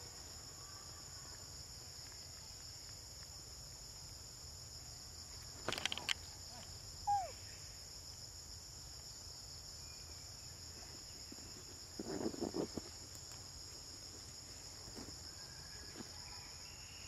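Steady high-pitched drone of insects such as crickets or cicadas in forest. A few brief rustling or clicking sounds break in about six and twelve seconds in, and a single short squeak falling in pitch comes about seven seconds in.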